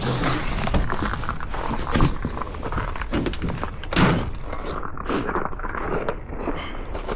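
Knocks and thuds of parts and tools being handled during work on an outboard motor, over a scraping rustle; the loudest knocks come about two and four seconds in.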